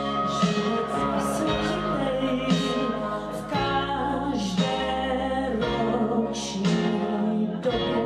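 A woman singing a song into a microphone with instrumental accompaniment.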